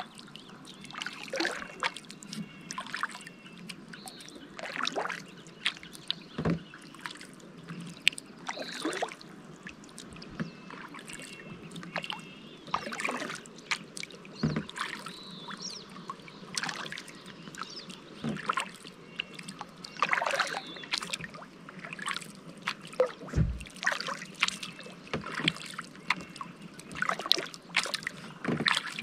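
Kayak paddling on calm water: the paddle blades dip and pull through the water with small splashes and drips, irregularly every second or two. One low knock a little over two-thirds of the way through.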